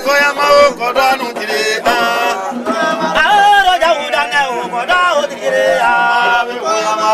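Man singing a traditional Yacouba (Dan) song in a chant-like style, holding notes and bending the pitch of each phrase.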